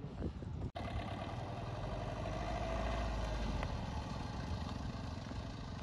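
A motor vehicle's engine running steadily, swelling a little around the middle and easing off again; the sound cuts out for an instant just under a second in.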